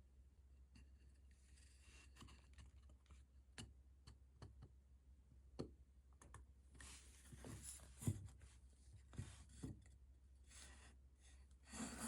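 Faint, scattered clicks and light knocks of small hard objects being handled, over a steady low hum, with a slightly louder knock about eight seconds in.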